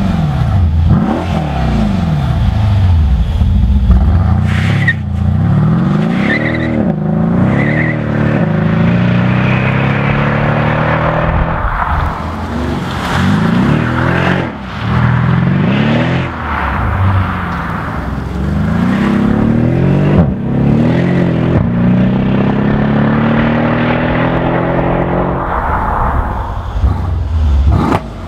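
Mercedes-Benz SL63 AMG's 5.5-litre twin-turbo V8 exhaust revving and accelerating hard. The pitch climbs and drops back again and again: quick rev blips at first, then longer pulls up through the revs.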